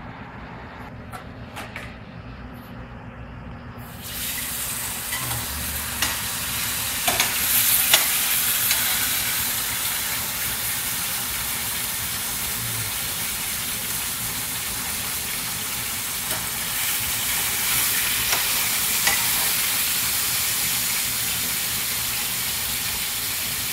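Bonito tuna fillet frying in hot olive oil in a skillet: a steady sizzle that starts suddenly about four seconds in as the fish goes into the oil. A few sharp clicks of utensils against the pan come soon after.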